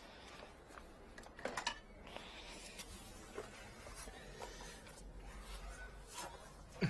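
Light handling noises of a red pipe cutter being worked inside a valve pit: a few small clicks and knocks, the loudest pair about a second and a half in and a sharp click near the end.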